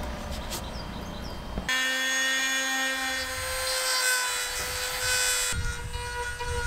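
A Dremel rotary tool starts suddenly about two seconds in and runs with a steady high whine as it grinds into the bottom edge of a sailboat's rudder, opening it so trapped water can drain out. Its tone shifts abruptly a few seconds later. Before it starts there is only a low rumble.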